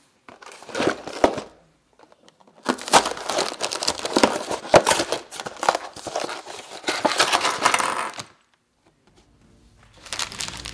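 Cardboard toy box being opened by hand: the flap tearing and scraping with scattered clicks, in bursts. Plastic bags of small plastic parts crinkling near the end.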